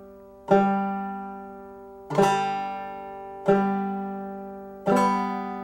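Banjo's third string struck four times with a clawhammer downstroke, the back of the middle fingernail hitting the string about every second and a half. Each note is the same pitch and rings out and fades before the next strike.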